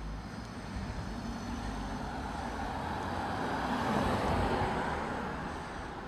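A car passing on the road, its tyre and engine noise swelling to a peak about four seconds in and then fading away.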